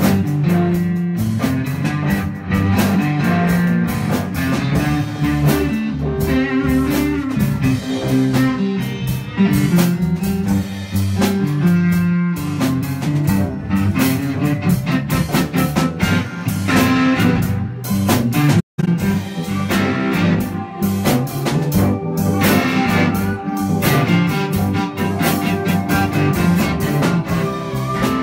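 Live blues band jamming: electric guitars over a drum kit. The sound cuts out for an instant about two-thirds of the way in.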